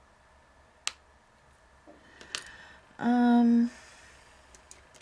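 Art pens being handled on a craft desk: two light clicks, then, about three seconds in, a short steady pitched hum lasting under a second, the loudest sound.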